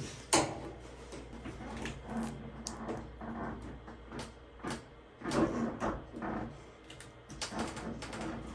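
Irregular clicks, knocks and scraping as a greasy washing-machine suspension rod is gripped with pliers and worked loose from its mount.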